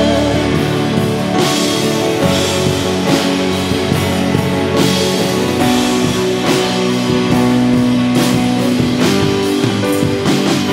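Live worship band playing a slow song: strummed acoustic and electric guitars with held chords over a steady drum-kit beat.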